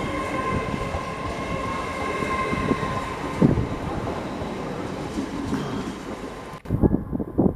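Train running through the station: steady rumble of wheels on rail with a high whine of several steady tones that fades about three seconds in. Near the end the sound changes abruptly to low, uneven thumps.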